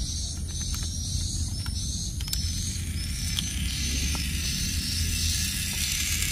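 Light plastic clicks of an AA battery being fitted into a toy train's motor unit, over a steady low rumble and a short high chirp repeating about twice a second. From about three seconds in, a high hiss grows louder.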